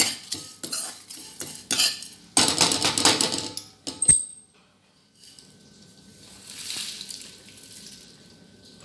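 A metal ladle scraping and stirring dry-roasting whole spices in a nonstick kadai, ending about four seconds in with one ringing metal clink. Then a faint rustling hiss as the roasted spices are tipped out of the pan onto a plate.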